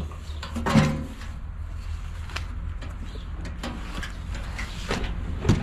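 Handling noises: a clunk about a second in as the rusty steel hood panel is moved, then scattered knocks and scrapes of a cardboard box being picked up. Underneath is a low steady rumble.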